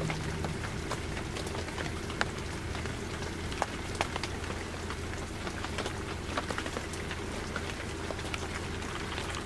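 Steady rain falling, with sharp drop taps scattered through it over a low steady hum.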